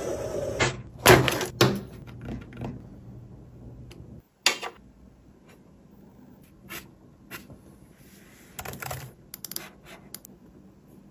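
A string of sharp clicks and light knocks, several close together in the first three seconds, one more about four and a half seconds in and a cluster near nine seconds: small hard plastic parts of a scale RC truck being handled.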